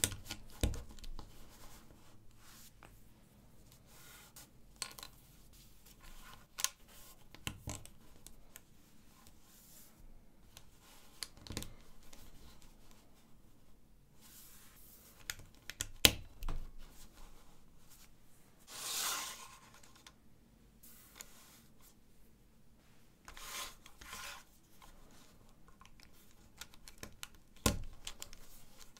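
LEGO 1×4 plates being handled and pressed together: scattered sharp plastic clicks several seconds apart, the loudest about sixteen seconds in, with quieter rubbing and sliding of pieces between them and one brief swish about nineteen seconds in.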